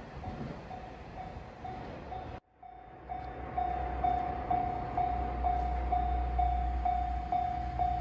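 Japanese level-crossing alarm bell ringing about twice a second, warning that a train is approaching. It breaks off briefly about two and a half seconds in and comes back louder, with a low rumble rising under it.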